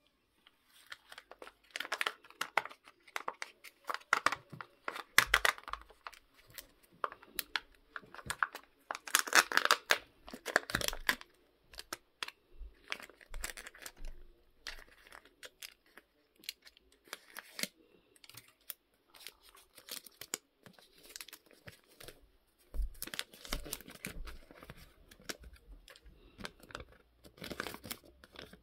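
Kinder Joy egg packaging being unwrapped by hand: plastic wrapper and foil seal crinkling and tearing in irregular bursts, loudest in the first half. A paper leaflet rustles near the end.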